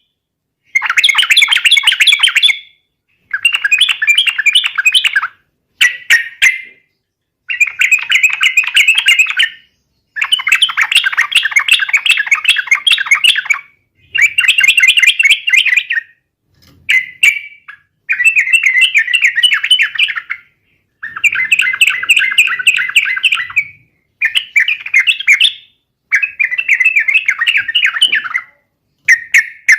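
Yellow-vented bulbul (trucukan) singing: about a dozen loud, bubbly, warbling phrases, each one to four seconds long, with short pauses between them.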